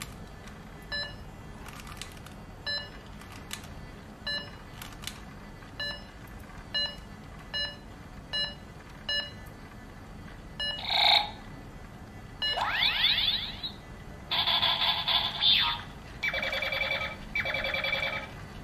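Silverlit Macrobot toy robot beeping about once a second while actions are programmed in, then playing its electronic sound effects as it runs the programmed moves: a short chirp, a rising sweep, and two warbling bursts.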